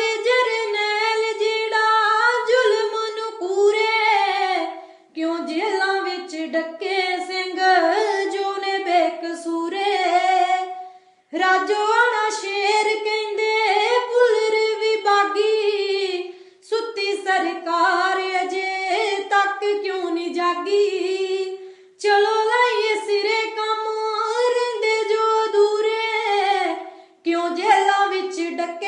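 A high voice singing unaccompanied in long, wavering phrases, pausing briefly for breath about every five to six seconds.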